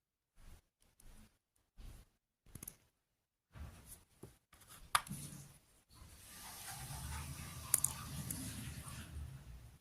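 Hands handling toy parts and packaging: scattered light clicks and taps, then a few seconds of continuous rustling with a couple of sharp ticks.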